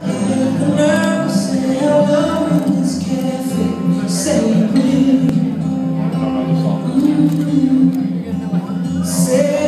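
A song with a singer's voice over a steady instrumental accompaniment, played for a couple dancing.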